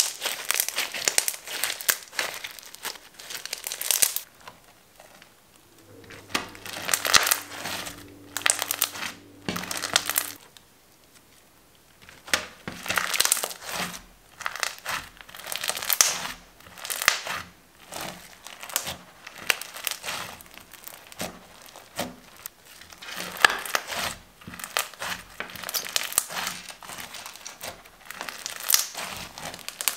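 Clear slime packed with foam beads being squeezed and kneaded by hand, giving crackling, squishing sounds in irregular bursts, with two short lulls about five and eleven seconds in.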